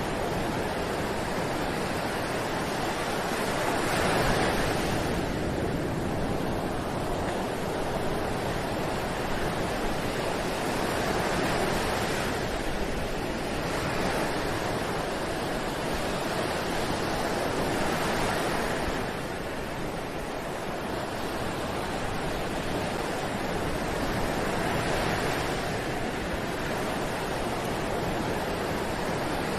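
Ocean surf breaking on a beach: a continuous wash of waves that swells roughly every six to seven seconds.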